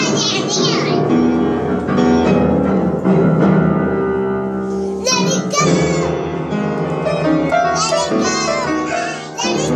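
Upright piano being banged on by small children, with random clusters of notes struck and left ringing together and no tune. Children's high voices call out at the start, about five seconds in, and again near the end.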